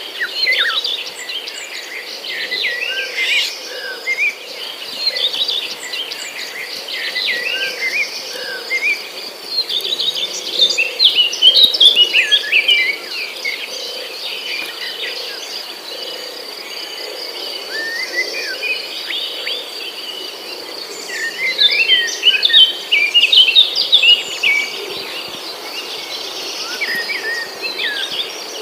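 Steady high-pitched insect trill, with busy bursts of bird chirping and twittering over it that grow louder twice.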